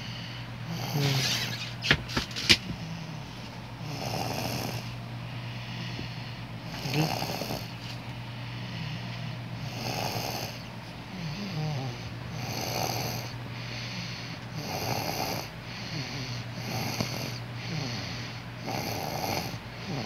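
A three-year-old child snoring in sleep, one snore about every two to three seconds. A few sharp clicks come about two seconds in.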